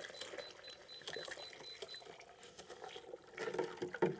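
Hot water pouring from a saucepan into a plastic container of sugar, stirred with a spoon, with clicks and scrapes of the spoon against the container that get louder from about three seconds in.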